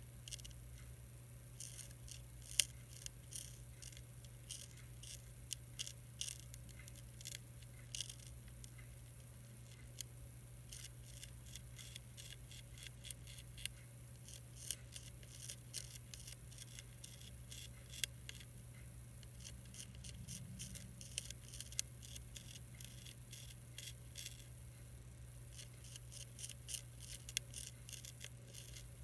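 Monarch caterpillar chewing a milkweed leaf: a faint, uneven run of crisp little clicks, several a second, with a few short pauses, over a steady low hum.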